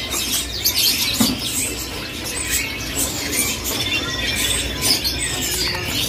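Many caged songbirds chirping and twittering at once, a dense overlapping chorus of high, short chirps and quick sweeps, over a steady low hum.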